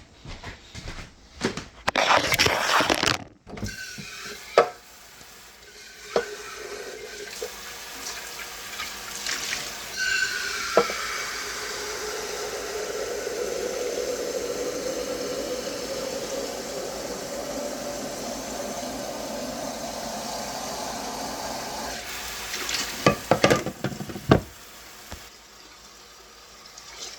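Water running from a tap into a container for about twelve seconds, its tone rising a little as the container fills. Knocks and clatter come before it and again near the end.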